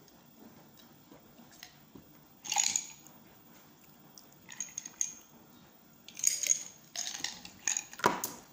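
Ice cubes clinking and rattling in a drinking glass, in several short bursts a second or two apart.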